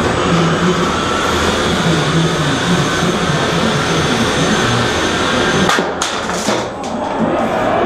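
Steady whir and high whine of small combat robots' motors running in the arena, over loud hall noise, with a few sharp knocks about six seconds in.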